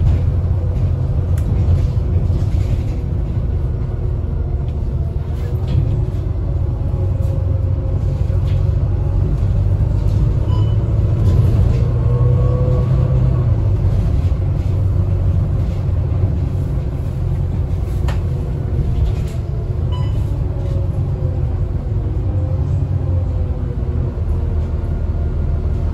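Volvo B9TL double-decker bus's 9.4-litre Volvo D9B diesel engine running under way, a steady low rumble with an engine note that rises and falls gently.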